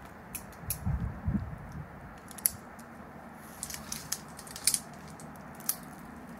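Rock-climbing gear and rope being handled: scattered sharp clicks and light scrapes, the loudest about two and a half seconds in and again near five seconds, with a brief low rumble at about a second.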